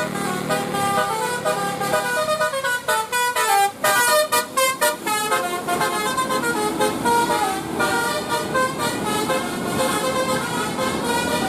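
Bus telolet horn, a multi-tone musical horn, playing a tune of short notes that step up and down in pitch, with a fast run of quick notes about three to five seconds in.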